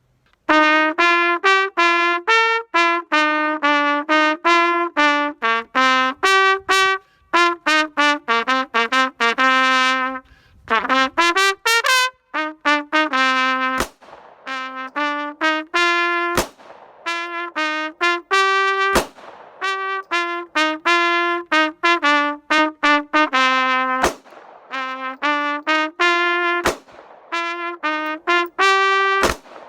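Trumpet playing a fast melody of short, quickly tongued notes with rapid runs up and down the scale. In the second half, single sharp clicks land about every two and a half seconds.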